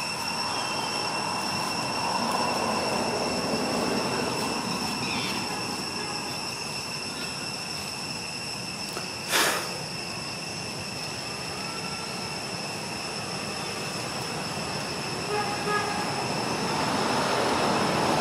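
Steady high-pitched drone of forest insects over a background hiss, with one sharp click about nine seconds in.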